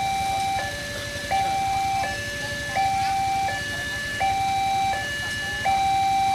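Railway level-crossing warning alarm sounding: an electronic two-tone signal alternating steadily between a higher and a lower tone, each held about three quarters of a second, with the crossing's red lights flashing to warn of an approaching train.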